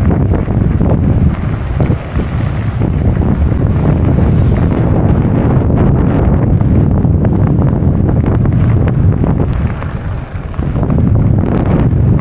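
Loud wind buffeting the microphone, a continuous low rumble that eases briefly twice.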